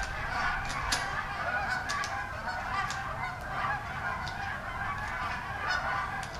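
A flock of geese honking continuously, many overlapping calls, with a few sharp clicks cutting through.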